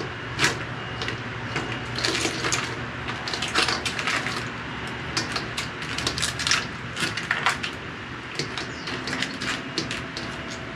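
Someone eating freshly marinated Kona crab: irregular crunching and sharp clicks throughout.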